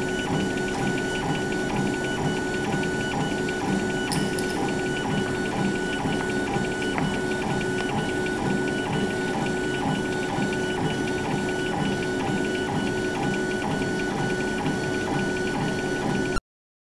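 Laser engraving machine's motor-driven head running back and forth while it engraves a stone tile: a steady whine of the drive motors over a quick, even mechanical rhythm. It cuts off suddenly near the end.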